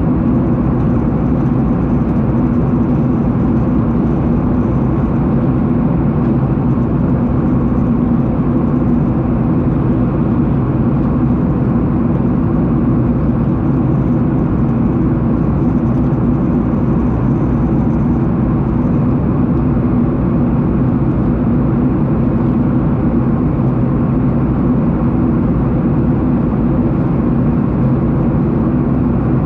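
Steady drone of an airliner's jet engines and rushing air, heard inside the passenger cabin.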